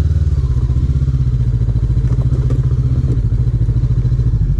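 Honda CB500X's parallel-twin engine running at a steady low speed, with an even pulsing beat.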